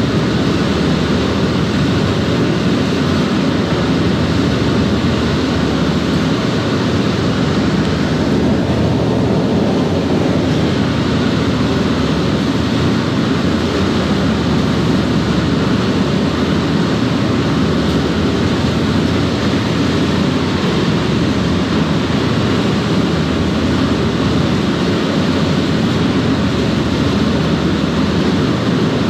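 High-speed ferry's waterjet drives and engines running at speed: a loud, steady deep roar mixed with the rushing of the churning jet wake at the stern.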